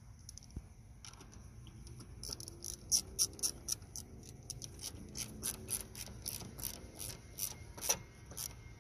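A hand ratchet wrench clicking in quick, uneven runs of several clicks a second, starting about two seconds in and thinning out towards the end, as it tightens the clamp nut on a car battery's positive terminal.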